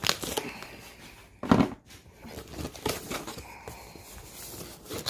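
Cardboard box and packing material being handled and opened: rustling and crinkling with small clicks, and one louder knock about a second and a half in.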